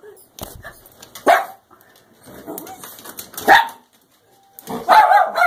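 Miniature schnauzer barking while trying to pull a stuck toy loose: single barks about a second and three and a half seconds in, then a quick string of barks near the end.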